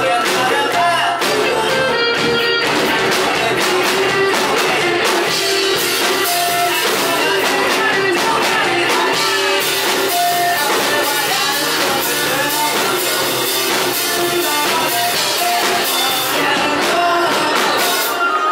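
Live rock band playing: a Telecaster-style electric guitar over bass and a drum kit, with a man singing.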